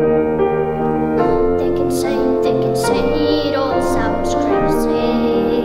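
A boy singing a slow song into a microphone over sustained keyboard chords; the keyboard plays alone at first and his voice comes in about a second in.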